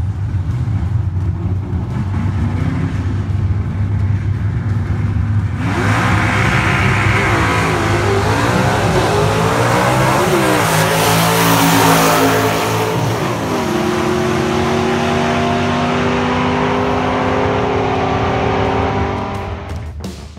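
Drag race launch of a Ford-powered 1968 AMX against a white Ford Mustang, both with manual gearboxes: engines rumbling at the starting line, then going to full throttle about six seconds in. The engine pitch climbs and drops back at each gear change, swoops down as the cars pass, then holds high as they run off down the track, fading near the end.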